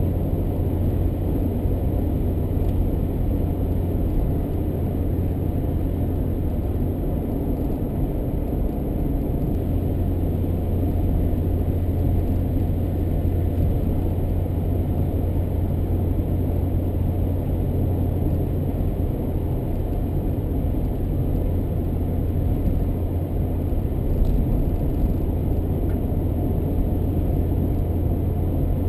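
A car driving steadily along a road: a constant low rumble of engine and tyre noise, with no sharp sounds.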